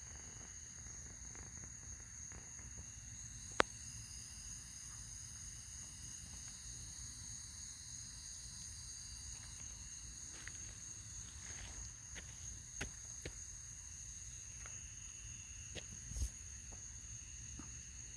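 Faint, steady high-pitched chorus of evening insects, with a higher band of song joining about three seconds in. A single sharp click about three and a half seconds in.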